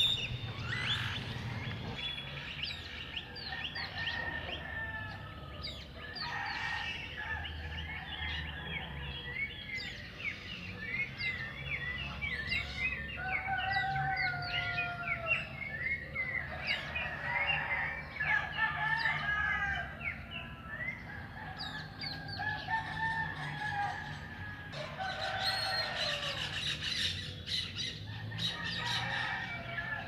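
Many wild birds chirping and calling at once, a dense mix of short whistled notes with a few longer held calls, over a low steady rumble.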